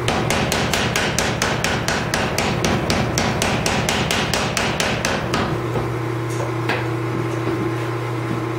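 Mechanical power hammer pounding a welding-hot Damascus billet in a fast, even run of blows, about five or six a second, setting the first forge weld. The run stops a little past halfway, leaving a steady hum with a couple of lone blows.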